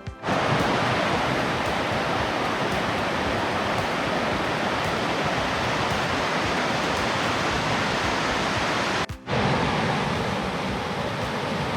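Rocky mountain river rushing and splashing over boulders, a steady wash of water noise. It drops out briefly twice, near the start and about nine seconds in, and after the second break it sounds somewhat fuller and lower.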